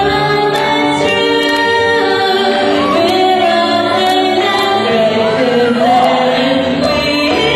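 Choir singing with music, several voices holding chords together over a steady beat.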